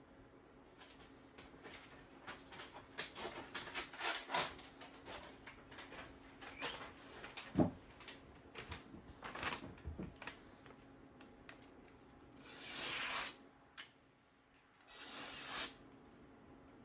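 Freshly sharpened high-carbon steel Santoku knife being test-cut. Scattered light ticks and rustles come first, then two longer scraping slices, each about a second long, near the end.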